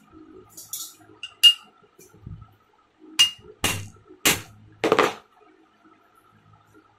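A puller's screw being turned with a bar to draw the impeller off a domestic water pump motor's shaft: a series of sharp metal clinks, some with a brief ring, quickest around the middle.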